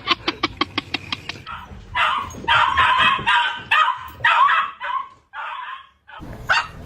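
Dog barking and yipping: a rapid string of short yips, then a run of harsher, longer barks about two seconds in, breaking off shortly before the end.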